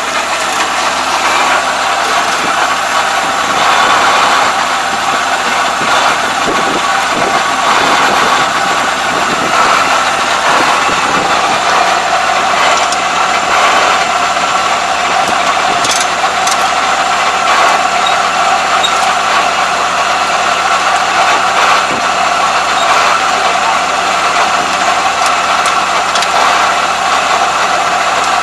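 ISEKI ANR460 rice combine running steadily, its engine and threshing machinery making a constant mechanical din.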